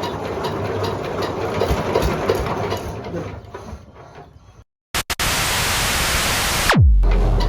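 Diesel-engine-driven circular wood saw running with a clattering mechanical noise, which fades out about halfway through. After a brief gap, a loud hissing burst ends in a sharply falling pitch, and a steady deep engine hum follows.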